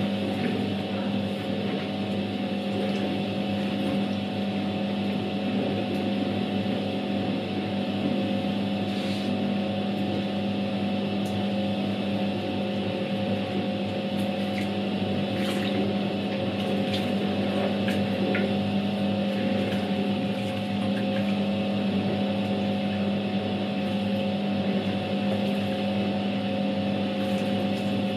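Światowit M4 impeller washing machine running a wash: its EDA SED-110-4 capacitor motor hums steadily under the swish of soapy water and clothes churned by the impeller, with a few faint ticks now and then.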